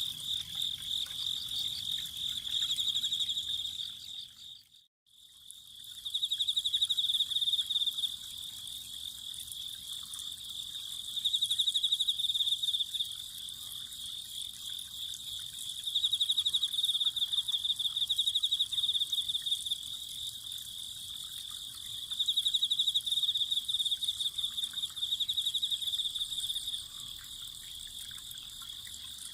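Autumn crickets chirping in a high, rapidly pulsing trill that swells into louder bouts every few seconds. The sound cuts out completely for a moment about five seconds in.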